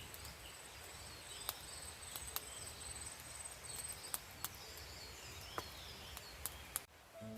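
Outdoor ambience: a high steady insect-like trill for the first few seconds, faint chirps, and scattered sharp clicks or pops. It cuts off abruptly near the end, and music starts.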